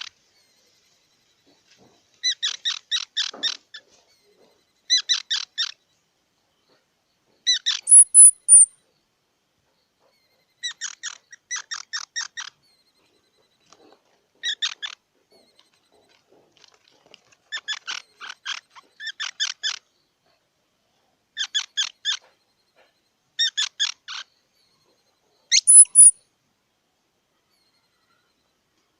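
Squirrel calling in repeated bursts of rapid chattering chips, about five chips a second, a burst every second or two. Twice, a short very high squeal leads into a burst.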